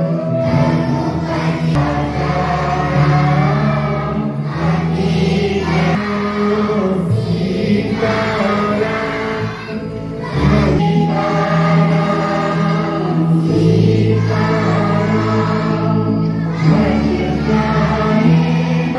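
A group of voices singing a devotional song over a steady instrumental accompaniment of held low notes.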